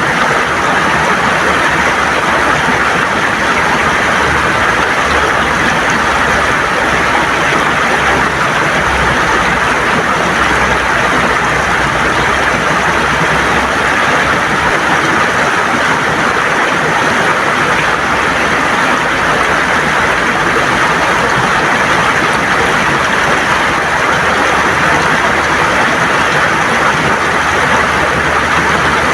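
River water gurgling and rushing steadily over smooth stones.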